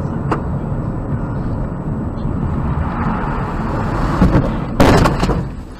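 Steady road and engine noise heard from inside a moving car, then about five seconds in a loud impact of several quick bangs over half a second: a collision with a car turning across its path.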